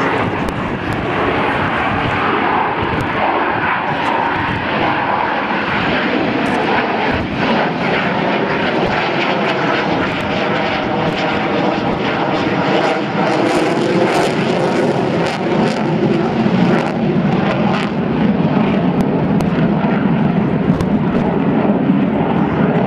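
Loud, continuous jet noise from an F/A-18 Hornet's twin turbofan engines as it flies its display, with a wavering pitch that shifts as the jet moves, growing deeper and heavier toward the end.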